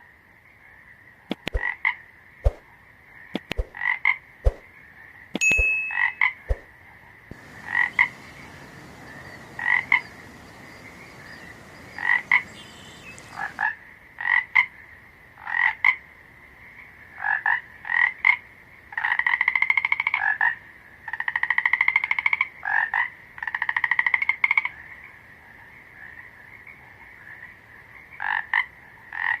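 Frogs croaking: short calls repeated every second or two, with a few longer pulsed, trilling calls about two-thirds of the way in. A few sharp clicks come in the first seconds, and a faint hiss runs underneath for several seconds.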